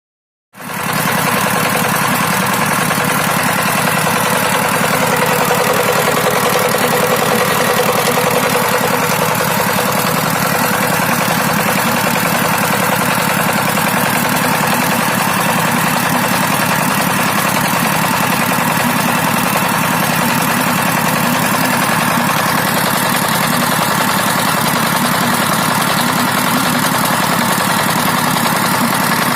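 Dongfeng 12 hp single-cylinder diesel engine running steadily. The sound cuts in abruptly about half a second in, out of silence.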